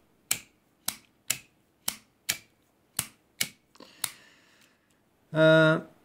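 IMCO Triplex lighter's lever flipped open and shut repeatedly with the thumb, a run of about eight sharp metallic clicks, working the freshly changed flint. Near the end comes a short vocal hum.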